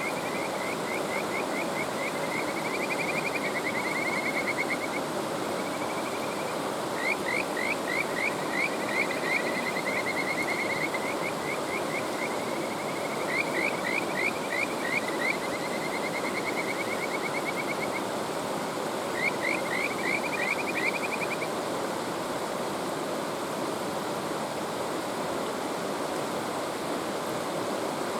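Kajika frogs (Buergeria buergeri) calling: about four phrases of quick rising whistled notes that run into a trill, over the steady rush of a mountain stream. The frogs fall silent a little past the two-thirds mark, leaving only the stream.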